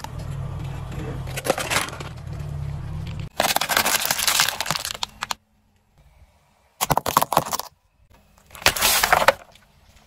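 A car tyre crushing objects one after another: a large eggshell cracking over a low steady hum, then hard plastic crunching and cracking in several separate loud bursts with short silent gaps between them.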